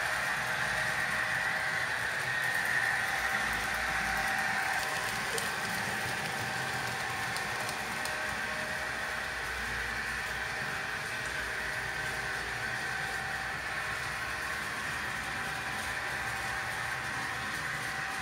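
Model railway trains running on the layout: a steady whirr of small locomotive motors and wheels on the track, a little louder in the first few seconds.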